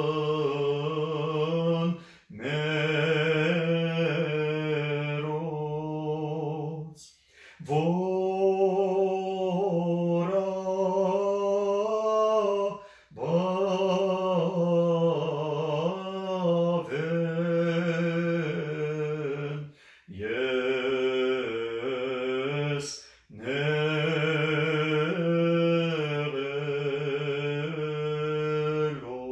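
A man chanting a hymn solo and unaccompanied, in long held phrases of several seconds with short breaths between them.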